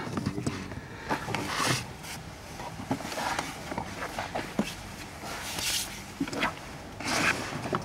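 Scattered light plastic clicks and knocks with several short rustling scrapes, as the plastic cover of a cabin air filter housing is fitted in place.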